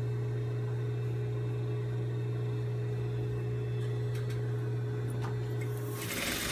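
Industrial sewing machine's motor humming steadily at idle. About six seconds in, the machine starts running and stitching.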